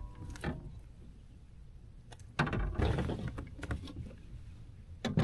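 Knocks and handling noises aboard a fishing kayak, with a louder rustling or splashing burst lasting about a second, roughly two and a half seconds in.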